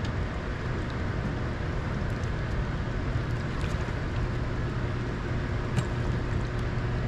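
A boat motor running steadily with a low hum, with a few faint ticks over it.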